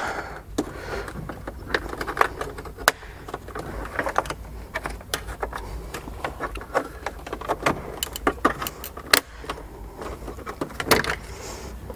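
Plastic centre-console trim of a Mercedes C-Class W206 being pried loose with a plastic trim tool: many irregular clicks, snaps and rattles of the trim and its clips coming free.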